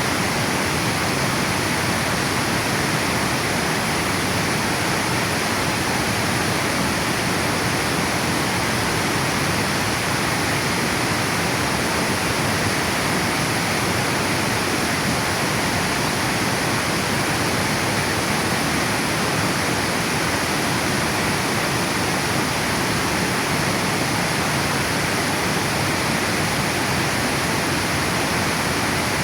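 Water pouring over a river dam: a steady, unbroken rushing.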